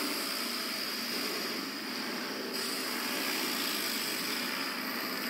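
Steady whirring and hissing of Clone Robotics' humanoid robot torso's hydraulic drive, its pump and valves running as the artificial muscles move the arms and hands.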